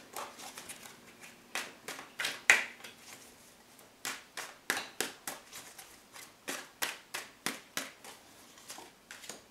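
Tarot deck being shuffled by hand: an irregular string of short, crisp card flicks and taps, a few a second.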